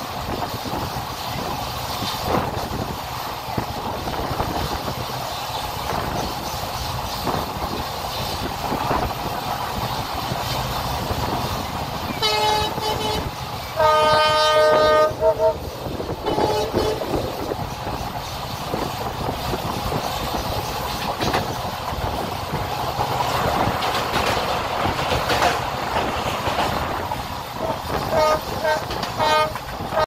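Train running on the track, a steady rumble of wheels on rail with clickety-clack, heard from an open coach window. The WDP-4D diesel locomotive's horn sounds a short blast about twelve seconds in, then a longer one of about a second and a half, and several short toots near the end.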